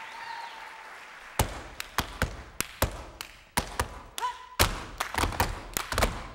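Step dancing with no music: from about a second and a half in, stomps on a wooden stage floor and sharp hand claps in a fast, syncopated rhythm, several strikes a second.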